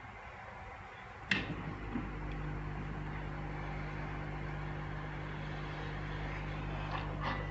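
A sharp click about a second in, then a steady low engine-like hum sets in and holds, with two faint clicks near the end.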